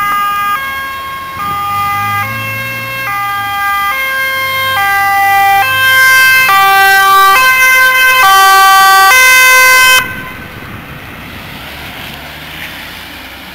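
Two-tone siren of an ambulance mobile medical team (MMT) response vehicle on an urgent A1 call. It alternates between its high and low tone about every 0.8 s and grows louder as the vehicle approaches. It cuts off suddenly about ten seconds in, leaving engine and traffic noise.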